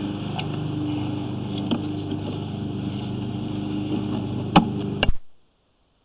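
An engine running steadily with an even hum, a few light clicks over it and two sharp clicks about four and a half and five seconds in; then the sound cuts off abruptly into silence.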